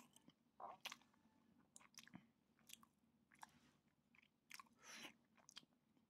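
Faint mouth sounds of someone chewing soft bread soaked in milk: scattered small wet clicks and smacks, with a couple of longer squishy bursts.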